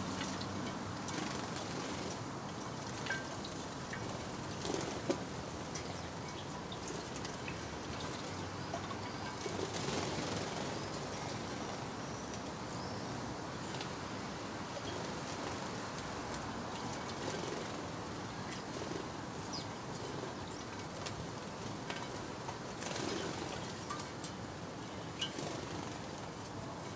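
Sparrows bathing and drinking at shallow water dishes: scattered short chirps and brief wing flutters over a steady background hiss.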